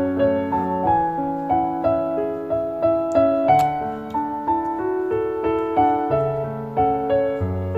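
Background piano music: a gentle melody of sustained notes over a soft accompaniment.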